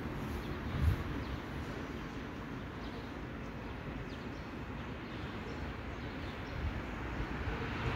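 Steady outdoor street ambience: a low rumble like distant city traffic, with a brief low bump about a second in.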